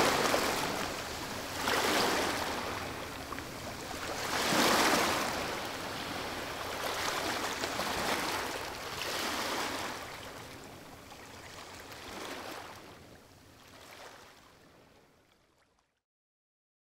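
Waves washing in, each surge of hiss swelling and falling back every two to three seconds, growing weaker and fading out near the end.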